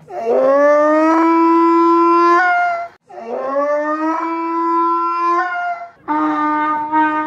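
Donkey braying: two long drawn-out calls, each rising in pitch at the start and then held steady for almost three seconds, with another call beginning near the end.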